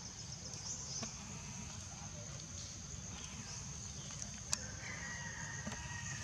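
Outdoor ambience: a steady high-pitched drone with a low rumble beneath it. A single sharp click comes about four and a half seconds in, and a thin, high, whistle-like call begins about five seconds in.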